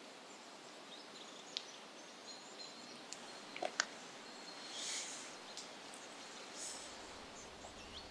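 Footsteps on a dirt floor strewn with debris, over faint outdoor ambience: a few sharp snaps and ticks, then two soft gritty scuffs in the second half.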